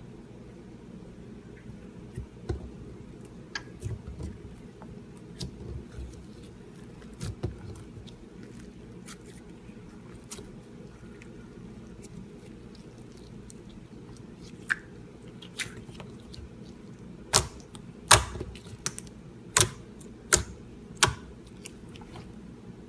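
Slime being worked by hand, giving scattered sharp clicks and pops, with a run of louder pops in the last few seconds, over a steady low hum.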